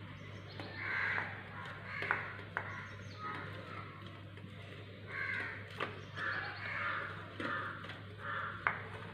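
Boiled egg grated on a metal box grater: a run of short rasping strokes, with a few sharp clicks of the grater against the plate.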